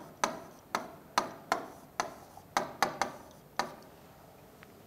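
Marker pen tapping and stroking on a whiteboard as words are written: about nine sharp, irregular taps, which then stop.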